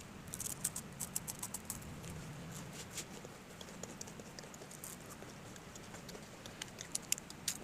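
A crunchy snack being bitten and chewed close to the microphone: a quick run of small crisp crunches in the first two seconds, then scattered ones.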